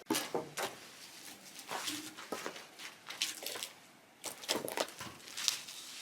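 Irregular scuffs and soft knocks, about two a second, with a short quiet gap about four seconds in.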